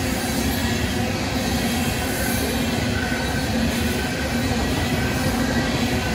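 Union Pacific freight train of tank cars rolling past, a steady rumble of steel wheels on rail with a faint, steady wheel squeal.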